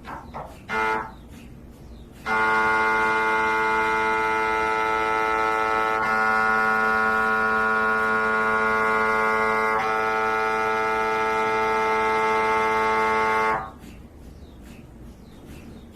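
MRI scanner's gradient coils sounding a loud, steady buzzing tone during a scan sequence, starting about two seconds in and cutting off sharply near the end, its tone shifting slightly twice along the way. A short tone sounds about a second in, before the buzzing starts.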